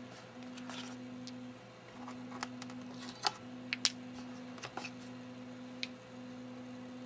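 AA batteries being pulled out of the scale's plastic battery compartment, giving a few scattered sharp clicks as the cells come free of their spring contacts and are put down.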